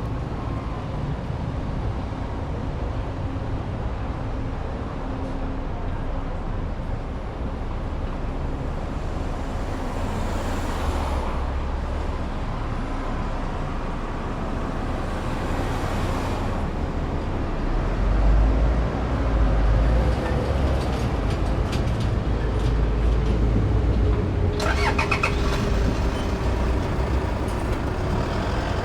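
Street traffic: a steady rumble of vehicle engines and tyre noise, with vehicles passing. The rumble swells several times as vehicles go by, one engine tone slowly drops in pitch over the last ten seconds, and a brief high squeal with a few clicks comes about 25 seconds in.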